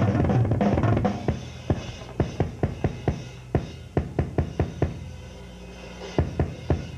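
Drum kit played solo, live: a dense roll across the drums and bass drum, thinning about a second in to separate strokes a few per second. A short pause comes near the end before the hits resume.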